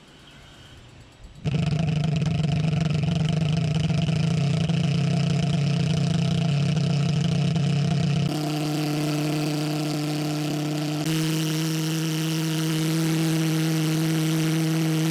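Homemade propane pulse jet engine comes in abruptly about a second and a half in and runs with a loud, steady buzzing drone. Its barrel has been shortened to 17 and a half inches, which raises the pulse frequency. The pitch shifts slightly twice.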